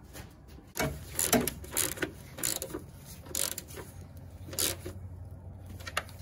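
Hand socket ratchet being worked on a bolt, giving short runs of clicks with each back-stroke, every half second or so, with some clatter of metal tool handling.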